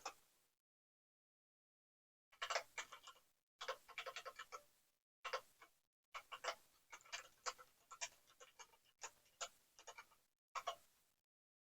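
Computer keyboard keys clicking in irregular bursts of quick typing, with short pauses between the bursts.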